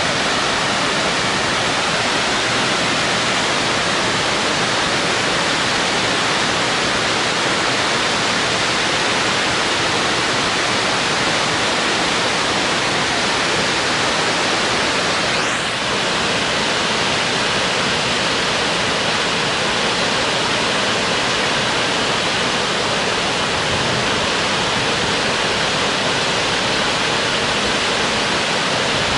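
Small creek waterfall: water falling and rushing steadily.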